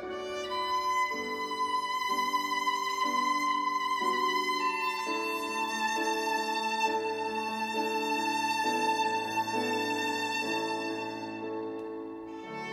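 Solo violin, a German instrument from around 1900, bowed: long sustained high notes, changing once about five seconds in, over lower notes that shift roughly every second, as in double stops. The notes ring on in the reverberant church.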